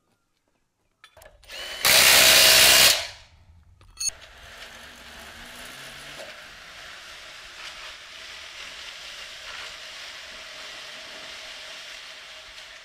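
A power tool runs in one loud burst of about a second, typical of a bolt being driven during sawmill track assembly. A sharp click follows, then steady background noise with a faint hum.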